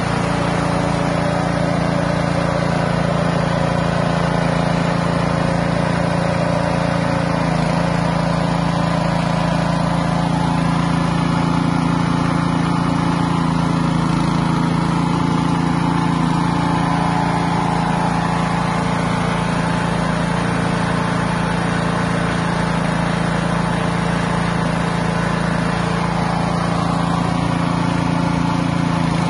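Small petrol engine running steadily under load, driving a fish-feed pellet machine that is extruding pellets from a dry fish meal and rice bran mix.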